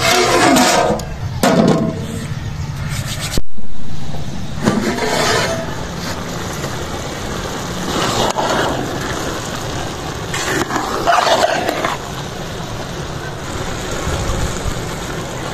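A large aluminium cooking pot of rice boiling over a wood fire, hissing steadily, while its metal lid is lifted off and a metal ladle scrapes and clanks against the pot in several short bursts, the loudest about three and a half seconds in.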